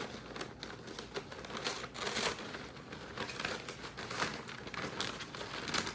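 Paper packaging crinkling and rustling as a parcel is unwrapped by hand, in irregular strokes, with a louder rustle about two seconds in.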